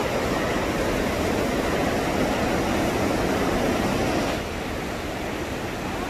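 Steady rush of fast-flowing water from a waterfall and creek, dropping a little in level about four seconds in.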